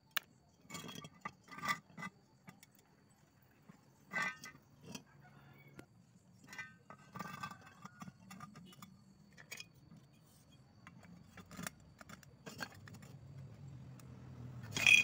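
Rectangular steel tubes and a steel square being handled and set against each other on a concrete floor: scattered light metallic clinks and knocks, with a louder clank at the very end.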